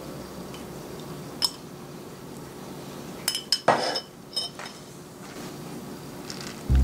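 Dishes and a utensil clinking against each other: a single sharp clink about a second and a half in, then a quick cluster of clinks with a short scrape between them around the middle, and two lighter clinks just after.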